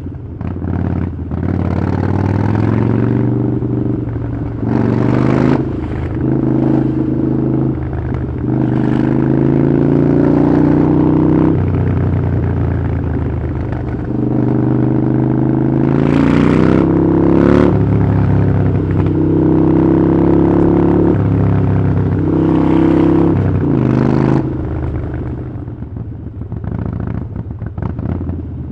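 Harley-Davidson Iron 883's V-twin engine through a Vance & Hines exhaust, ridden through the gears: the note climbs, dips briefly at each shift and climbs again, several times. It eases off near the end.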